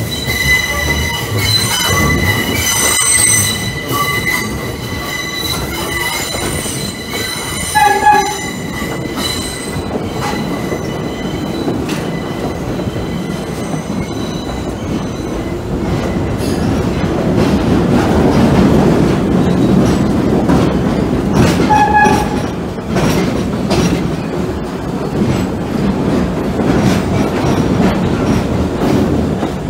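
NYC Subway 3 train's steel wheels squealing on the rails, several steady high tones at once, for the first several seconds. After that the train's running rumble and rail clatter build up louder in the tunnel. Two short horn-like blasts sound, about eight seconds in and again near 22 seconds.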